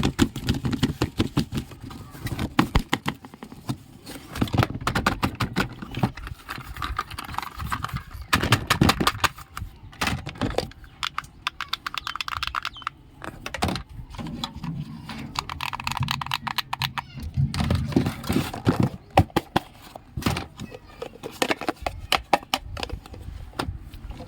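Small plastic toy kitchen pieces being handled: many quick clicks and taps, with stretches of rustling or crinkling.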